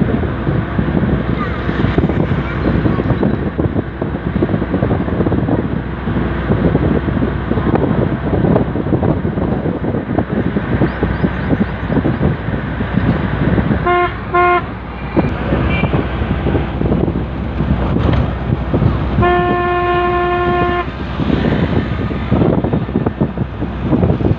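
Steady wind rush and road noise of a moving vehicle, heard through an open side window. A vehicle horn gives two quick toots a little past halfway, then one long blast about five seconds later.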